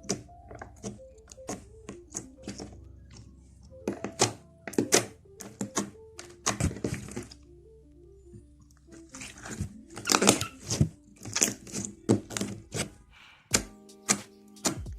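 Slime being squeezed and worked by hand, giving sharp wet clicks and pops in quick clusters, with a brief lull in the middle. Soft background music plays underneath.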